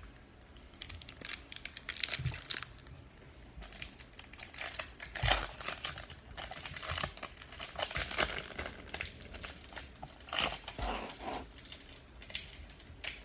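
Trading-card pack wrappers crinkling in irregular crackles as 1998-99 Finest basketball card packs are handled and opened.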